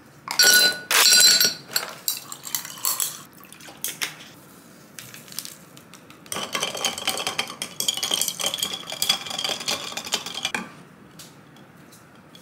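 Glass and ice clinking with tableware. There are two sharp ringing clinks in the first second and a half, then scattered light knocks, then about four seconds of dense clinking and crackling from ice in a glass.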